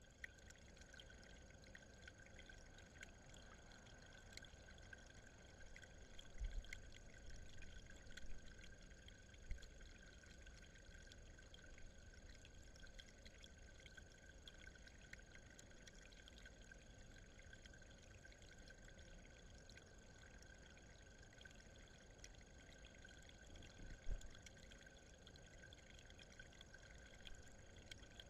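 Faint trickle of water running over the rocks of a small garden pond, under a steady high-pitched whine. Two soft low thumps stand out, one about six seconds in and a louder one about 24 seconds in.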